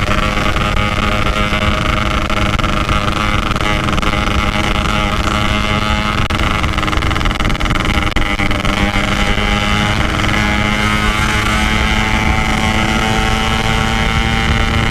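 Two-stroke Yamaha RX-King motorcycle engine running at steady cruising revs, with wind rushing over the microphone.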